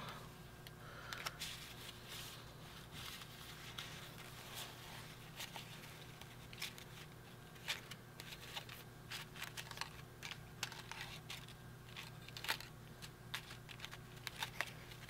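Faint, scattered rustles and small clicks of paper pieces being handled as a stack of die-cut cardstock embellishments and stickers is leafed through, over a low steady hum.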